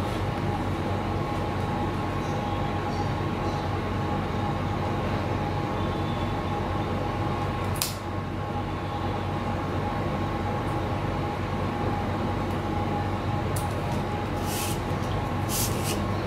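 A steady mechanical drone with a low hum and a couple of faint steady tones, with a few light clicks in the second half.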